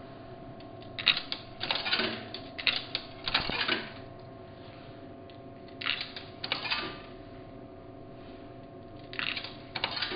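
Coins fed into a Coke vending machine's coin slot, clinking and rattling down through the coin mechanism in three rounds, over a steady hum.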